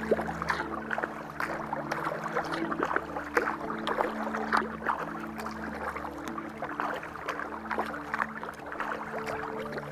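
Kayak paddle strokes: the blades dipping and splashing in the water, with irregular splashes and drips. Soft background music with long held chords runs underneath.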